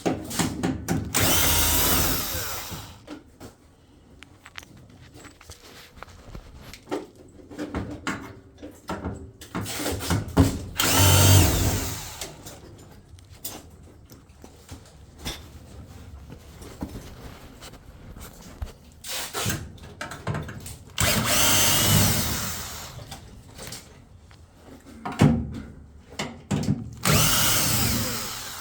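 Power drill/driver running in several short runs of about two seconds each, backing screws out of the washer's cabinet panels, with small clicks and knocks of handling between runs.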